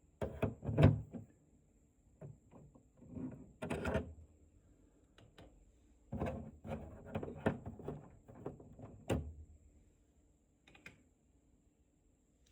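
Plastic clicks, knocks and rattles come in irregular clusters as the housing parts of a Xiaomi air purifier are handled and pried apart by hand. A faint steady high-pitched tone sits underneath.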